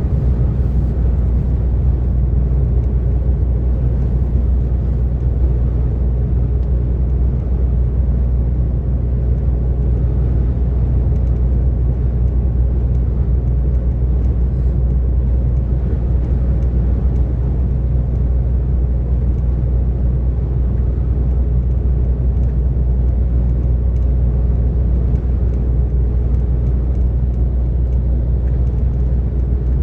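DAF XF 460 lorry's six-cylinder diesel engine running steadily at motorway cruise, a constant low drone with road and tyre noise.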